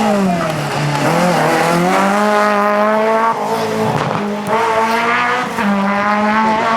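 Rally car engine, loud and close: the revs fall, then climb back and hold high, with two brief dips as it drives through.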